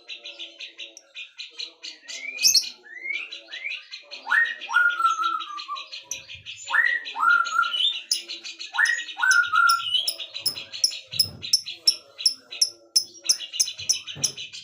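Several songbirds singing together: a fast continuous high trill, three pairs of loud swooping whistles in the middle, and quick, evenly spaced high chirps in the second half.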